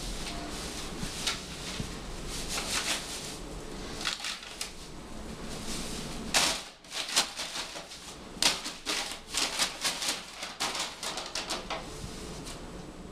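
A brown paper bag crinkling and rustling in irregular runs of sharp crackles. The crackles are densest and loudest in the second half.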